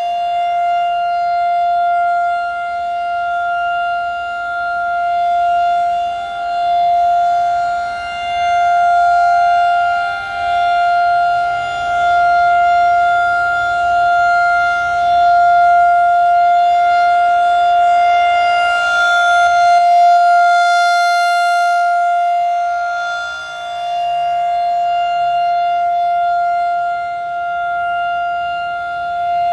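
Federal Signal 2001-DC outdoor warning siren sounding its steady alert tone at one pitch. Its loudness swells and fades every few seconds as the rotating siren head sweeps past.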